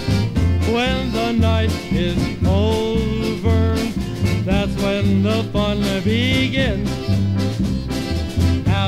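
Polka band playing an instrumental passage from a vinyl record: a bouncing bass line under a lead melody with sliding, bending notes.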